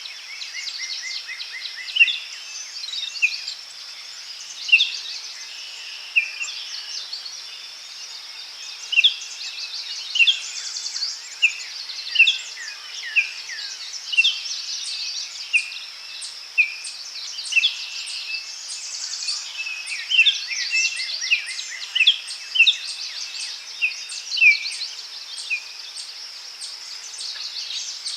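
Forest birds chirping and calling in short, quick notes, one after another, over a steady high insect hum.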